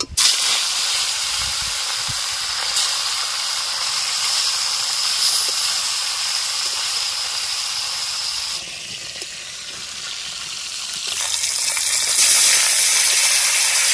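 Tilapia pieces frying in hot oil in a metal kadai, a loud steady sizzle that starts suddenly as the fish goes in. It eases off about two-thirds of the way through, then grows louder again near the end.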